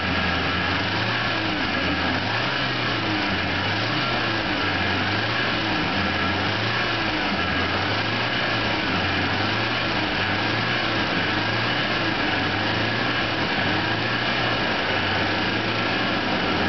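1986 Toyota van engine running steadily at about 3,000 rpm, heard from the driver's seat, its pitch wavering slightly about once a second. The clutch fan is disengaged, freewheeling while the engine warms toward its engagement temperature.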